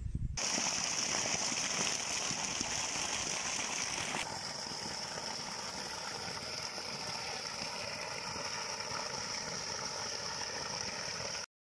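Irrigation water gushing from a pipe into a field channel: a steady rushing splash, its hiss thinning about four seconds in and cutting off abruptly just before the end.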